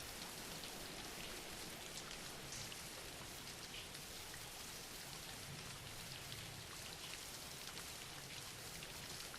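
Soft, steady rainfall, a continuous hiss of rain with faint scattered drops.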